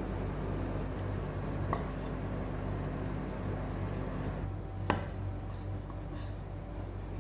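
Kitchen knife slicing through Vietnamese pork roll (giò lụa) onto a wooden cutting board, with faint ticks and one sharp knock of the blade on the board about five seconds in, over a steady low hum.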